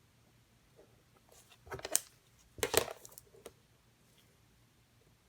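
Handling noise from craft work on a table: two short clusters of clicks and rustles, about two and three seconds in.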